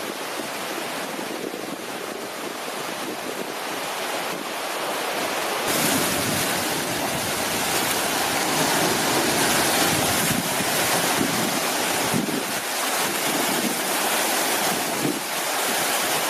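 Sea surf washing in and breaking against rocks, with wind blowing on the microphone; the surf gets suddenly louder about six seconds in.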